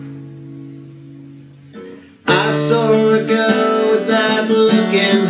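Capoed acoustic guitar: a chord rings and fades away, then about two seconds in the playing starts up again loudly with a steady strummed and picked accompaniment.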